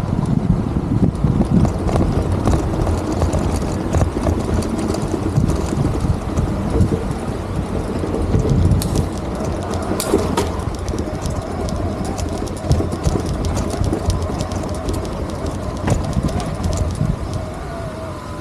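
City street ambience: a steady low traffic rumble with many scattered clicks and knocks.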